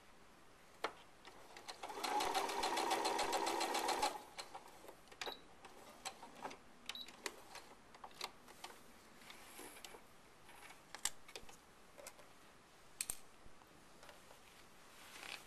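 Baby Lock Grace sewing machine stitching binding onto a quilt: a fast, even run of stitches for about two seconds, then it stops. Scattered light clicks and taps follow as the quilt is handled at the machine.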